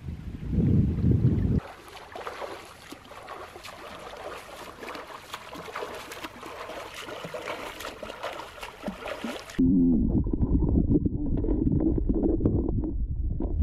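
Wind buffeting the microphone, then splashing and lapping water from a person swimming in a lake. From about ten seconds in, the sound switches abruptly to the muffled churning and bubbling of water heard from underwater.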